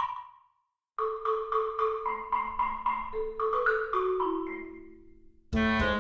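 Background music: a marimba-like melody of quick, evenly repeated notes over a bass line that steps down, after a short gap about half a second in. A louder, fuller chord comes in near the end.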